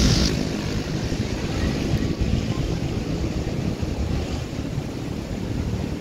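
Wind buffeting the phone's microphone: a rough, fluttering low rumble with no clear pitch.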